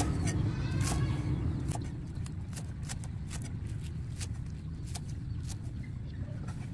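Cleaver chopping spring onions on a round wooden chopping board: a quick, uneven run of sharp knocks as the blade meets the wood, over a steady low rumble.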